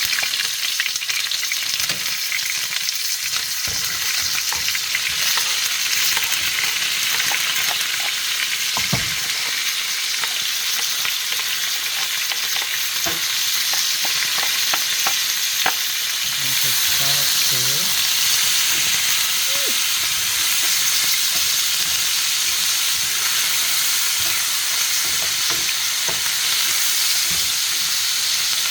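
Seasoning sizzling and frying in hot oil in a cooking pot, starting suddenly as it goes in. It is stirred, with occasional light clicks of the spoon against the pot.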